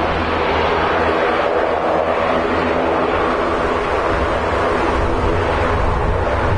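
Airbus A320-214 airliner's CFM56 jet engines running steadily as it rolls out on the runway after landing. The noise holds level throughout, with a low hum beneath it.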